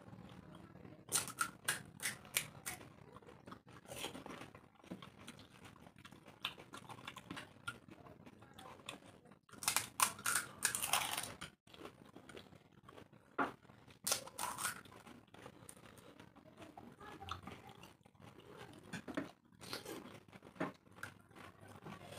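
Crisp fried pani puri (fuchka) shells being cracked open by fingers and crunched while chewing, in short irregular clusters of crackles with quieter stretches between.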